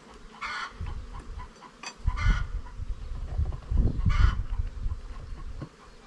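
Beehive smoker's bellows squeezed three times, each a short puff of hiss, about two seconds apart.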